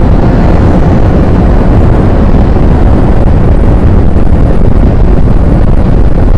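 Heavy wind buffeting on a helmet-mounted microphone at road speed, over the running inline-four engine of a 2013 Honda CBR1000RR Fireblade, steady and loud throughout.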